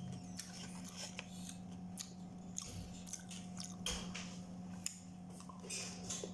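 A person eating: chewing, with scattered soft clicks and rustles from a plastic fork in a foam tray of spaghetti and a paper food box.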